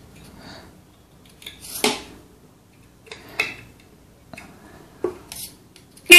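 Sealed disc-type motorcycle horn being tuned on its adjuster screw. A few short clicks and brief buzzes come from it as a powered wire is touched to its terminal, and right at the end it starts a loud honk.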